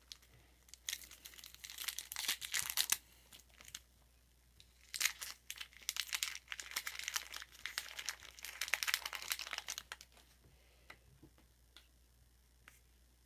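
A 1992-93 Topps basketball card pack's wrapper being torn open and crinkled by hand: a short bout of rustling, then after a pause a longer one. A few light clicks follow near the end as the cards are handled.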